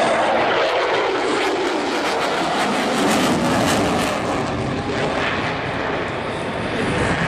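An aerobatic airplane's engine running at power during a display flight, its note shifting as the aircraft manoeuvres overhead.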